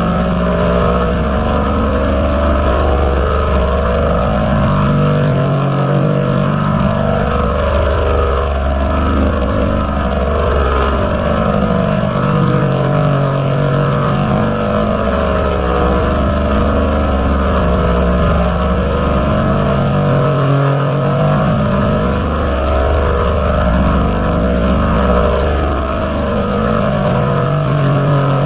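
Heavily distorted, pitch-shifted layered audio edit of the 'G-Major' meme-effect kind: a continuous loud, dense buzzing drone whose low tones shift in blocks every few seconds.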